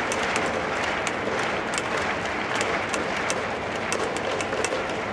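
Baseball stadium crowd clapping: a steady crowd noise with many sharp, irregular claps standing out.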